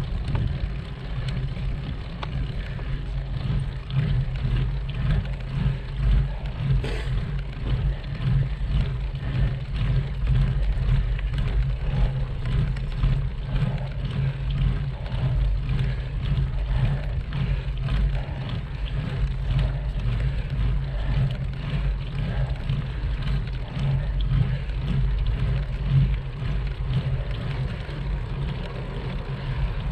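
Wind buffeting the microphone of a bike-mounted camera while riding, heard as a steady low rumble that swells and dips every second or so.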